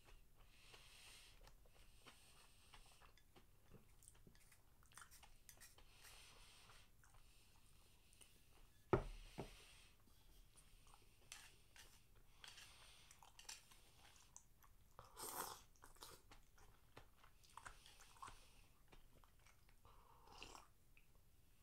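Close-up chewing and soft mouth sounds. About nine seconds in there is a single sharp knock, the loudest sound, as a ceramic rice bowl is set down on a wooden table. Near the end comes a short sip from a wooden soup bowl.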